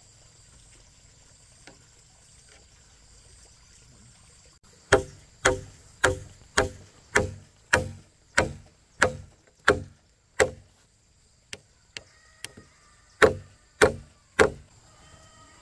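Hammer driving a steel nail into a wooden log: a steady run of about ten hard blows, a little more than one a second apart, starting about a third of the way in, then three light taps and three more hard blows near the end.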